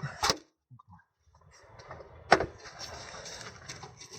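Hand-tool work on a car's gear-shift actuator during its removal: a couple of clicks, a short pause, then one sharp knock about two seconds in followed by faint steady rustling and scraping.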